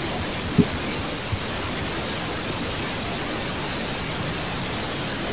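Steady, even hiss with one short knock just over half a second in and a fainter one a little later.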